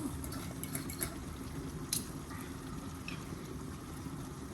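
Food cooking in pots on a stovetop: a steady bubbling and simmering, with a few light clicks.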